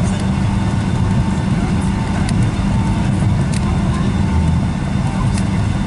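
Cabin noise of a Boeing 757-200 taxiing: a steady low rumble from the idling engines and the rolling gear, with a faint steady hum and a few light clicks from bumps and cabin rattles.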